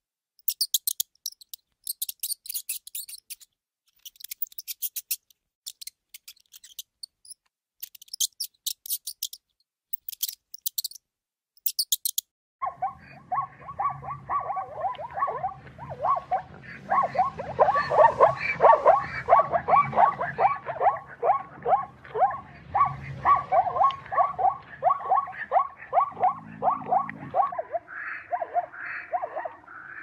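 A ground squirrel's short bursts of rapid, high-pitched clicking, with silent gaps between them. Then, about twelve seconds in, plains zebras break into their barking call: a long run of quick yelping pulses, about four or five a second, which carries on to the end.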